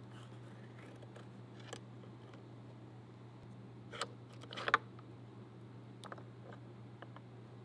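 Metal clicks and light scraping of an SKS rifle's recoil spring and bolt carrier being taken out of the receiver, with a short cluster of sharp clicks about four to five seconds in, over a steady low hum.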